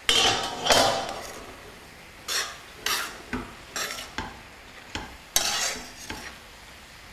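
Metal spoon stirring and scraping grated carrots cooking in milk in a wok, in separate strokes. The longest, loudest scrape comes in the first second, then shorter strokes follow every half second or so.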